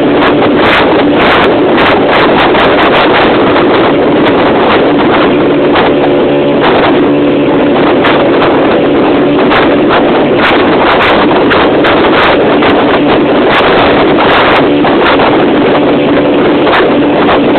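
Work barge's engine running steadily under way, a constant drone, with wind gusting across the microphone in repeated short buffets.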